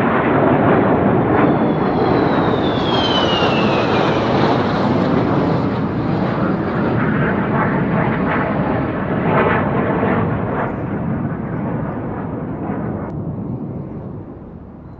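Fighter jet roaring past, with a high whine that falls in pitch a few seconds in, the roar fading away over the last few seconds.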